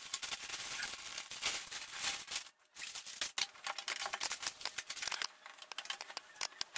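A mail-order parcel being opened by hand: dense crackling and rustling of the packaging, with a brief pause about two and a half seconds in.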